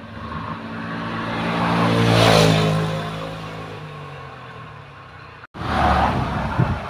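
A motor vehicle passing by: its engine noise swells to a peak a little over two seconds in, then fades with its pitch falling. The sound cuts off abruptly about five and a half seconds in.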